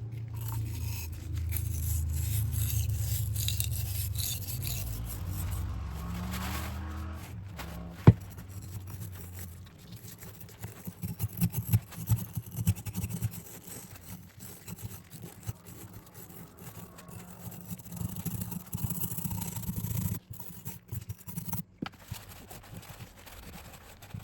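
Scrubbing and scraping at the fuse threads of a steel 37 mm anti-tank projectile, working out leftover glue and rust gunk in irregular strokes. A steady low hum runs through the first ten seconds, and there is a single sharp knock about eight seconds in.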